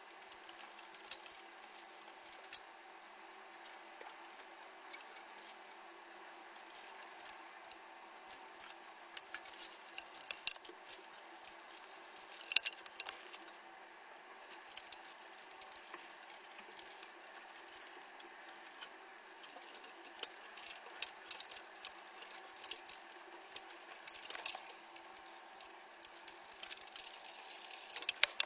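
Small clicks, taps and light rattles of computer parts and tools being handled during a PC build, scattered irregularly over a steady faint hum.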